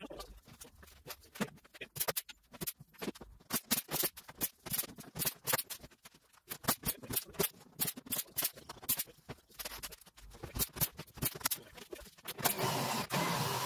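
Pneumatic rivet gun on an air hose setting temporary rivets into the aluminium floor of a Land Rover rear tub: irregular sharp clicks and taps of metal on metal, then about a second of air hiss near the end.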